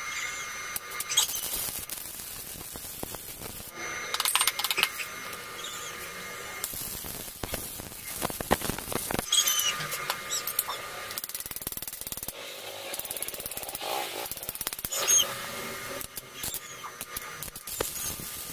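Irregular clicks, knocks and short rattling runs, the clatter of tools and metal parts being handled.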